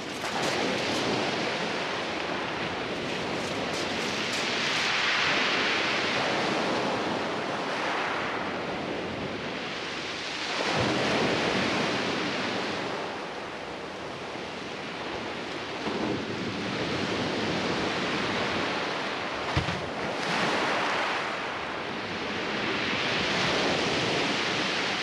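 Sea waves breaking on the beach in slow surges, swelling and fading about every six seconds. A single sharp tap comes about three-quarters of the way through.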